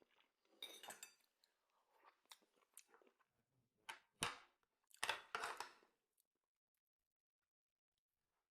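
Close-up mouth sounds of eating: chewing and crunching in a few short, crackly bursts that stop about six seconds in.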